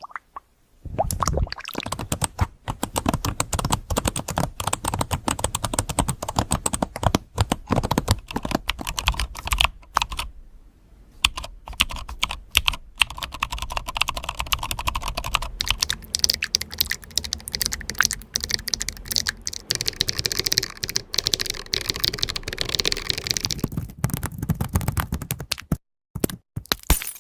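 Fast typing on a computer keyboard: a dense, continuous clatter of keystrokes, pausing briefly about ten seconds in.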